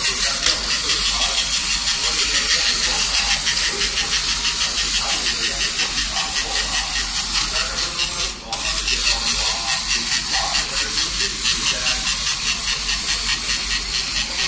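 Clockwork wind-up motor of a 1960s Marx Fred-on-Dino tin toy running as it walks on a glass tabletop, a fast, even whirring rattle. It cuts out for a moment a little past halfway, when the toy is handled, then runs on.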